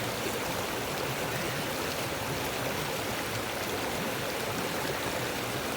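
Small river flowing, a steady even rush of running water.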